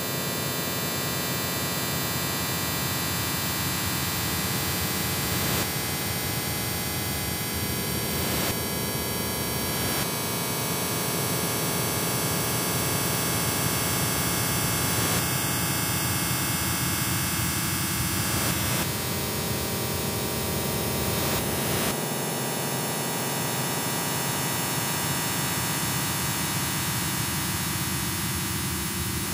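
Harsh industrial noise music: a dense wall of hiss and static layered with many steady droning tones. The texture changes abruptly every few seconds while the loudness stays even.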